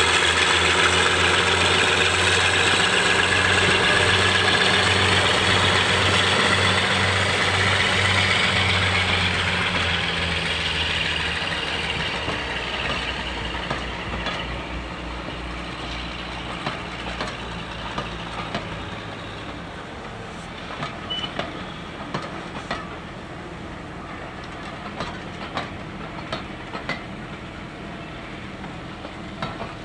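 A Class 52 'Western' diesel-hydraulic locomotive's engines running under power as it pulls its train away, loud for the first ten seconds or so and then fading. The coaches then roll past with their wheels clicking over the rail joints.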